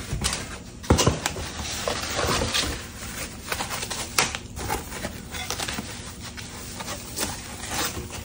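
Objects being handled, giving irregular clicks and knocks that are loudest about a second in and again around four seconds in.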